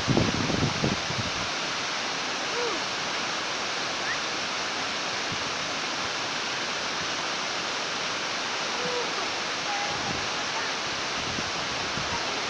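Waterfall rushing steadily, with low wind buffeting on the microphone in the first second or so.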